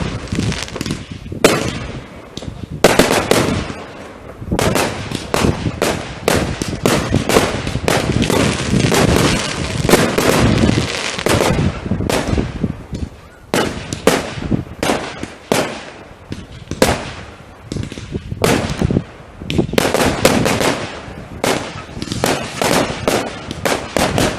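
Fireworks going off: many sharp cracks and bangs in rapid, overlapping succession, with short lulls between volleys.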